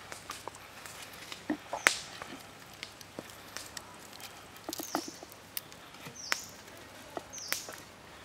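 Small clicks and knocks of a raw chicken leg and bamboo skewer being handled on a wooden cutting board, the sharpest about two seconds in. A bird gives a short high chirp every second or so.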